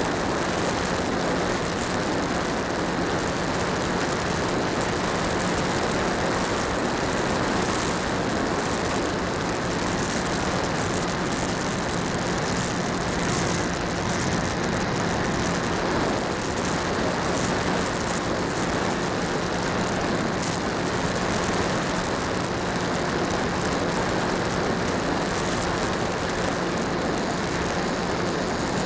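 Electric motor and propeller of an HK Skipper RC flying boat running steadily in flight, with a low, even hum under a rushing of air, heard from a camera on the plane itself.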